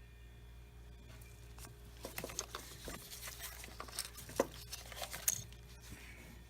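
Faint handling noises: an irregular run of clicks, taps and rustles starting about two seconds in and dying away near the end, over a steady low hum.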